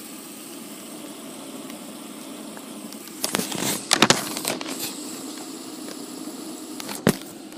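Two fidget spinners whirring steadily as they spin, with a cluster of sharp clattering knocks about three to five seconds in and a single sharp click near the end.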